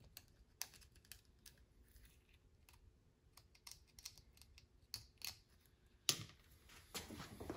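Faint, scattered light clicks and taps of hands and small tools working over a stern drive as it is cleaned up, with two short scuffing sounds near the end.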